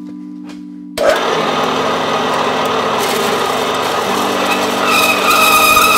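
Horizontal metal-cutting band saw starting about a second in and cutting into a solid metal block: a loud, steady cutting noise, with a high ringing tone joining near the end. Background music with sustained chords plays throughout.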